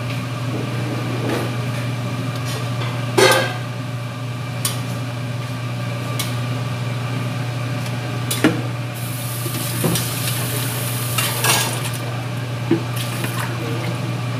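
A wooden spatula stirring noodles in a metal cooking pot, knocking sharply against the pot a few times, over a steady low hum. A brief hiss comes up about halfway through.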